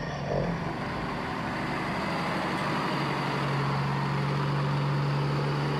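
Truck engine running, a steady low drone that grows steadier about three seconds in.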